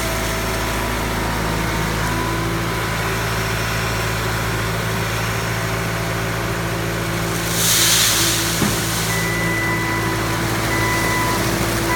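Skid steer loader engine running steadily at a constant pitch, with a brief hiss about eight seconds in followed by a click.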